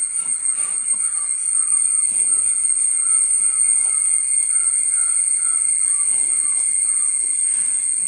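Insects droning with a steady high-pitched whine, over a rhythmic pulsing chirp that repeats a few times a second.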